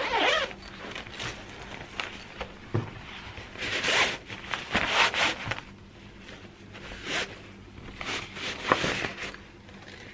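Zipper of a fabric storage bag for a car glass-roof sunshade being pulled open in several short zip strokes, the first right at the start and others about four, five, seven and nine seconds in.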